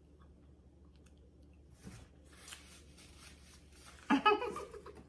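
Close-up chewing of a chicken salad flour-tortilla wrap: faint wet mouth sounds after a quiet start, then a short voiced sound from the eater about four seconds in.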